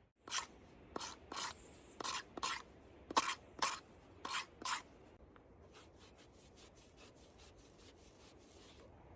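A hand tool scraping and dragging loose dirt to partly backfill a plumbing trench. It goes in short paired strokes, about one pair a second, then quicker, fainter strokes for the last few seconds.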